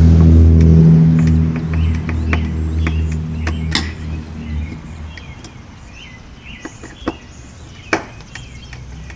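A motor vehicle engine hums steadily and is the loudest sound at first, then fades away by about five seconds in. Scattered sharp clicks and taps run through it.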